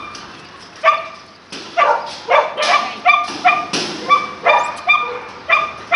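A small dog barking over and over in short, high-pitched yaps, about two a second, starting about a second in.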